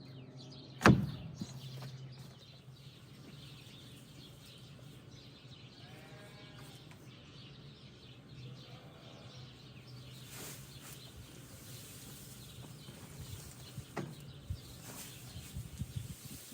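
A single sharp knock about a second in, then faint bleating of livestock twice in the middle over a low steady hum, with a few lighter knocks later on.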